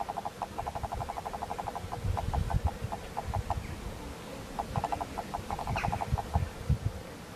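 Rapid runs of short clucking calls, about eight a second, in three bouts, over irregular low rustling.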